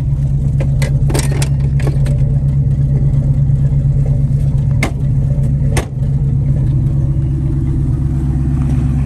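Car engine idling steadily while it warms up after a jump-started cold start, with a few sharp clicks over it, the last two about five and six seconds in.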